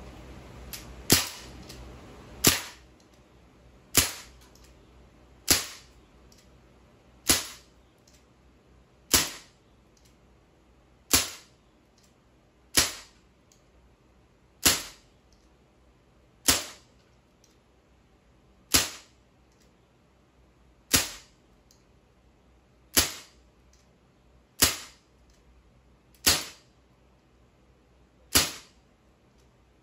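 Sig Sauer MCX .177 CO2 air rifle firing about sixteen single shots, one sharp crack every one and a half to two seconds.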